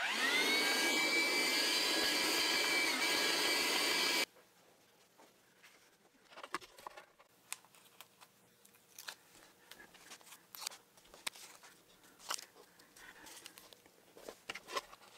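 A Shapeoko 3 XL CNC router's spindle spins up, its whine rising briefly before it settles, and runs loud and steady for about four seconds before cutting off suddenly. After that come faint scattered taps and clicks as hands press round black pads onto a sheet of MDF.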